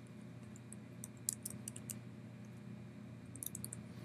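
Computer keyboard typing: keys tapped in two short runs, about a second in and again near the end, over a low steady hum.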